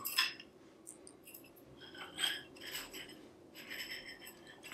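Metal tensegrity struts clinking lightly against each other, with elastic cords rubbing as they are pulled into the strut ends, in a few short scattered bursts.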